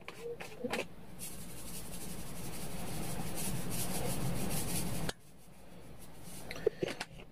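Salt being shaken from a small plastic salt bottle: a few small clicks of handling, then a gritty, rattling hiss of grains for about four seconds that stops suddenly.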